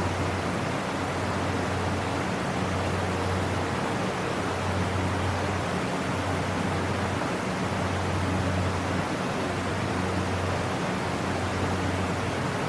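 Waterfall on a creek: falling water rushing steadily, an even hiss of spray over a low rumble.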